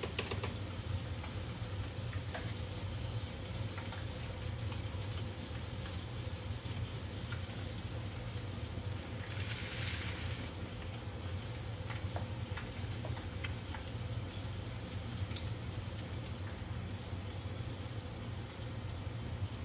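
Tilapia fillets frying in oil in a hot pan, a steady sizzle, with a brief louder hiss about halfway through.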